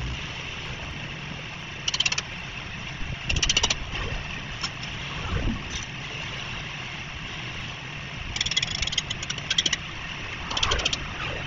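Street ambience: a steady low rumble of passing traffic, broken by several short bursts of rapid high-pitched rattling.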